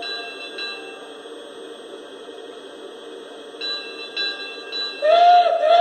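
Lionel Pennsylvania H10 model steam locomotive's onboard sound system. A whistle note cuts off at the start, and the locomotive's bell strikes about three times, half a second apart, from a little under four seconds in. Near the end come two steam-whistle blasts, each sliding up in pitch and then holding.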